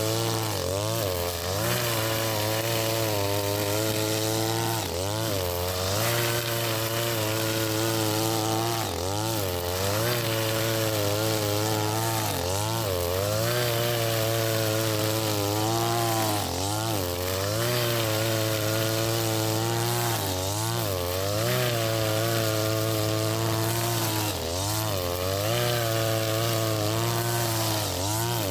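Husqvarna 542RBS 42cc two-stroke brushcutter running at high speed with square nylon trimmer line cutting grass, its engine pitch dipping and recovering about every four seconds.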